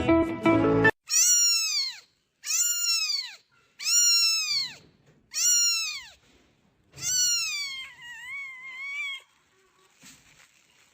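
A cat meowing five times in a row, each call about a second long, rising and then falling in pitch; the last meow is drawn out and wavers.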